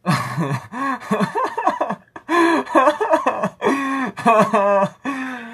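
A young man laughing and giggling bashfully in a run of short, rising and falling voice bursts that start abruptly.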